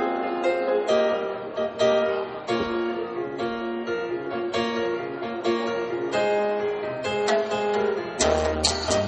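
Music: plucked acoustic guitar notes. Near the end a dance beat with a deep bass and sharp, evenly spaced percussion hits comes in.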